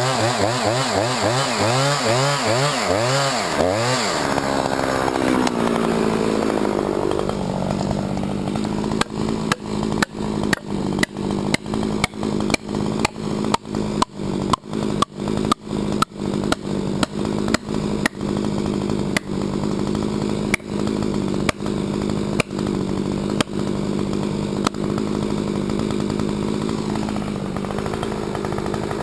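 Husqvarna 357XP two-stroke chainsaw running at high revs with a wavering pitch, then dropping to a steady idle about four seconds in. While it idles, a run of sharp clicks comes about two a second for much of the rest, spacing out near the end.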